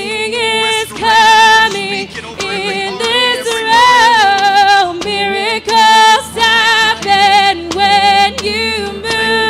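A live worship band plays a worship song while a woman sings the lead melody in sustained phrases with vibrato.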